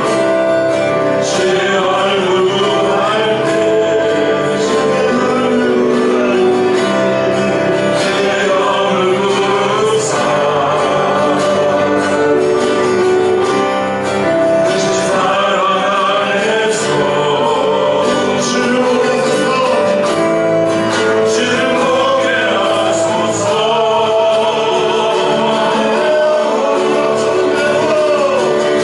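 Church praise team singing a worship song with instrumental accompaniment; voices hold long, wavering notes over a steady level.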